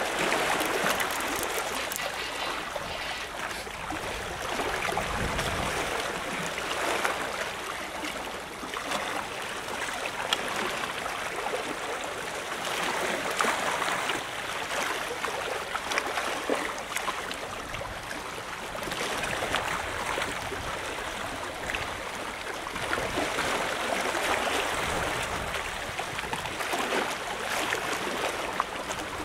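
Sea water washing and splashing against a seawall, swelling in surges every few seconds.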